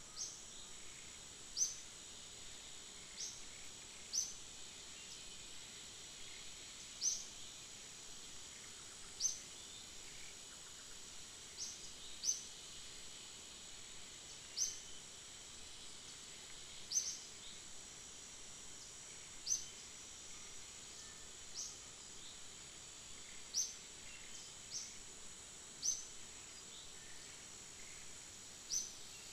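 Steady high-pitched insect drone, with a bird's short, rising chirp repeated irregularly about every two seconds.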